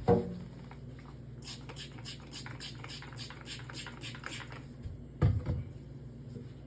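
Quick back-and-forth scrubbing strokes on the inside of a refrigerator, about five a second for some three seconds, between two dull thumps: one at the start and a louder one about five seconds in.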